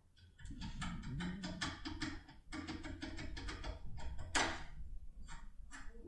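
Rapid light clicking of a foil-wrapped impression pick being worked back and forth inside a Polar rim lock cylinder, about six clicks a second, with one louder click about four and a half seconds in.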